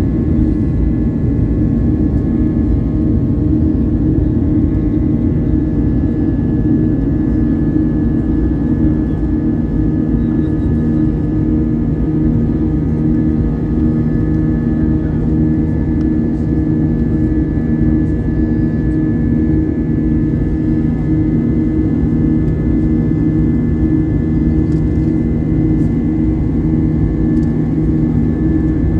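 Steady drone of a jet airliner's engines heard inside the cabin from a seat beside the engine: a low rumble with several steady hum tones that hold unchanged throughout.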